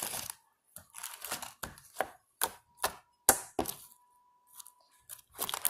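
Homemade slime and its plastic container being handled: about ten short, sharp clicks and pops at uneven intervals, with short pauses between them.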